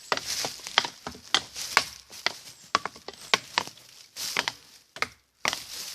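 Wooden batons striking tree trunks in rapid, irregular succession, two or three sharp knocks a second, switching from target to target.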